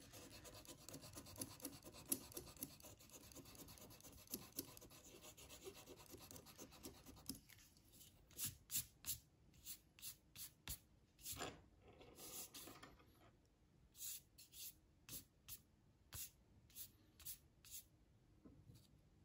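Faint scratching of a pen writing on watercolor paper, then an eraser rubbing pencil marks off the paper in short quick strokes, about two a second, with a brief pause near the middle.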